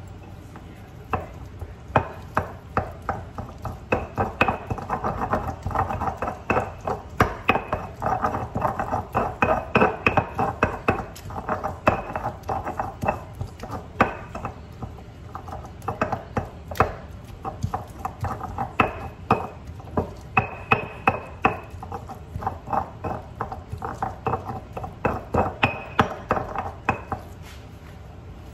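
Volcanic-stone molcajete and pestle (tejolote) crushing and grinding tomatoes and garlic into salsa: a steady rhythm of stone-on-stone knocks and grinding scrapes, starting about a second in and stopping near the end.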